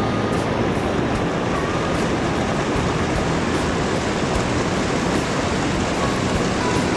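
Small mountain stream cascading over boulders: a steady, unbroken rush of water close by.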